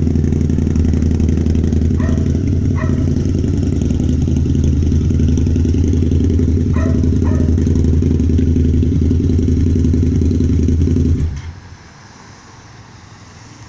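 Harley-Davidson Night Rod's liquid-cooled V-twin engine running steadily at low speed with a sidecar attached, then shut off about 11 seconds in.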